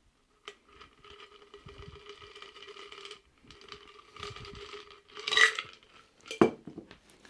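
Cocktail strained from a stainless steel shaker tin into a coupe glass: a thin stream of liquid pouring into the glass in two stretches, then a brief loud rattle of ice in the metal tin as the last of the drink is shaken out, and a sharp knock about six seconds in as the tin is set down on the bar.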